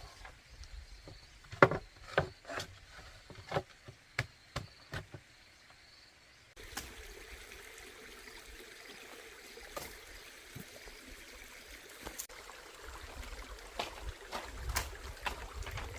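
A string of sharp knocks and taps, about a dozen in the first six seconds. Then it cuts to a steady rushing noise like running water, with scattered clicks, and a low rumble joins it near the end.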